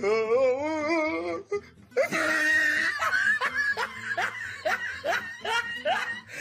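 A person laughing: a long wavering laugh, a short pause, then a run of short rising 'ha's, about two to three a second.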